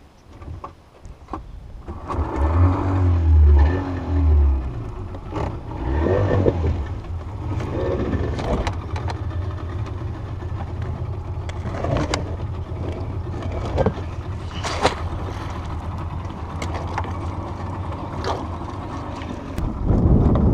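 Small boat's outboard motor picking up about two seconds in, surging a few times, then running steadily. Scattered sharp clicks and knocks sit over it.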